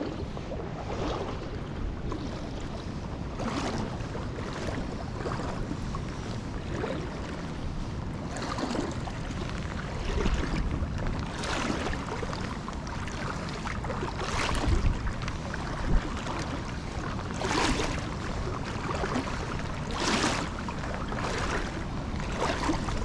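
Wind buffeting the microphone over running creek water, with a brief swishing sound every two to three seconds.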